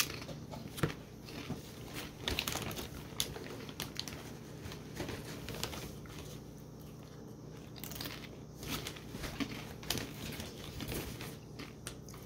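Mouth sounds of someone tasting hummus close to the microphone: irregular small wet clicks and lip smacks, a few a second, with faint handling noise.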